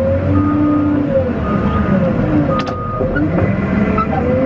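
Cat 950M wheel loader working, heard from inside its cab: the engine and hydraulics run with a wavering whine, while the reverse alarm beeps about once a second until nearly three seconds in. A couple of sharp clicks come just before the beeping stops.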